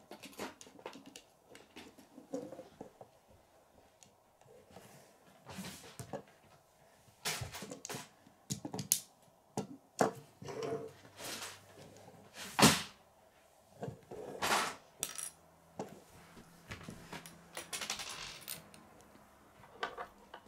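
Plastic Lego pieces clicking and clattering as they are handled and pressed together, in irregular sharp clicks with quiet gaps between them; the loudest click comes a little past the middle.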